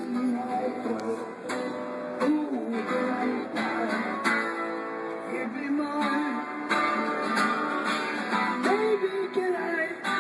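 A man singing along to a strummed acoustic guitar, with regular strums under the voice.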